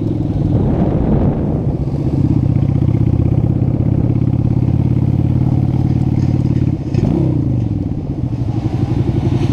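Honda Shadow V-twin motorcycle engine running under way, heard from the rider's seat. About seven seconds in, the engine revs drop quickly, then it runs on at low revs with an uneven pulse.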